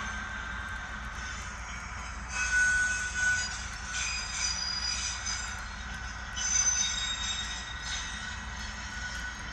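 Railcar wheel flanges squealing against the rail in several high-pitched bursts over a steady low rolling rumble.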